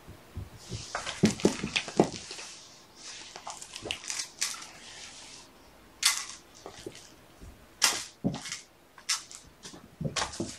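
Irregular rustling with sharp clicks and light knocks from a dangled cat toy being handled and kittens pouncing and scrambling on the carpet. The clicks come in a dense run in the first two seconds, then scattered ones through the rest.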